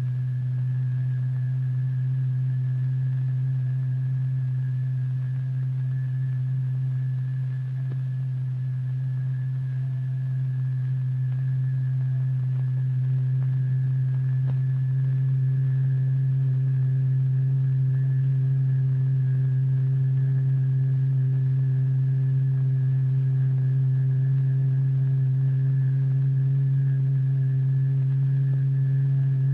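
A single steady low tone with faint higher overtones: the exciting note of the cymatics experiment, driving the vibrating membrane hard enough to throw the paste into spikes and eruptions. It grows slightly louder about halfway through.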